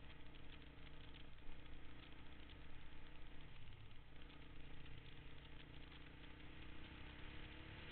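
Honda dirt bike engine running at a steady, even pitch while riding, with two short breaks in its note, about a second and a half in and again about four seconds in.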